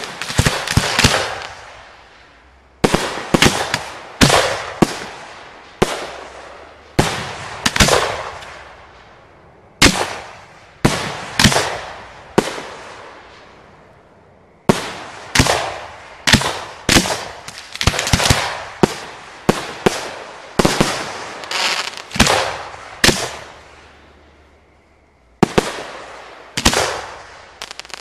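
Aerial fireworks display heard from the firing position: shells launching from their mortars and bursting overhead in a rapid series of sharp bangs, each trailing off. The bangs come in clusters, with short pauses near the start, around the middle and near the end.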